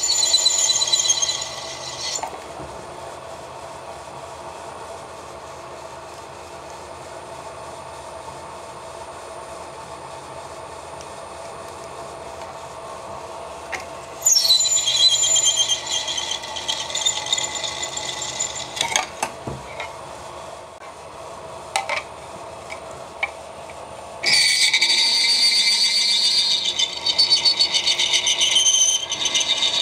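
Cobalt drill bit in a milling machine's spindle squealing as it is fed through 316 stainless plate, cutting cleanly at a slowed speed. The squeal comes in three spells: at the start, for about six seconds from about fourteen seconds in, and again from about twenty-four seconds in. Between the spells the spindle runs with a steady hum, and a few sharp clicks come during the second spell.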